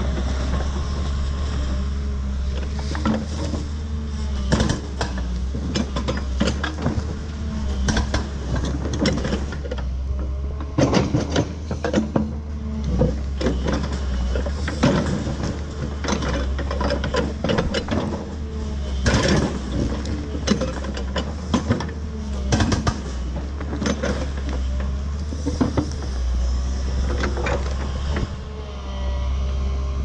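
New Holland tracked excavator's diesel engine running steadily under load, with whines that rise and fall as the hydraulics move the boom and bucket. Irregular cracks and knocks come as the bucket digs and tears through soil, stumps and roots.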